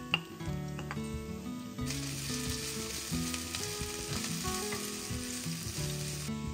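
Food sizzling in a hot frying pan, the sizzle starting about two seconds in and stopping suddenly near the end. A sharp click comes just after the start.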